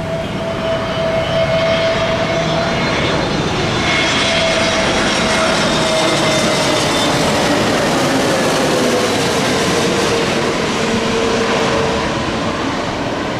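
Airplane engines during a landing: a loud steady rush with a whine that slowly falls in pitch, swelling about a second in and easing a little near the end.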